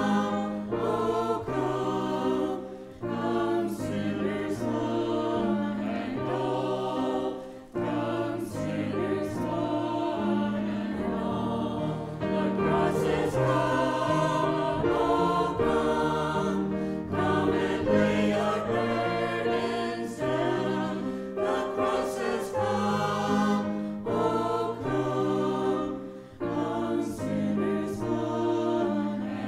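Mixed church choir of men and women singing an anthem together, over accompaniment that holds steady low notes which change every second or so.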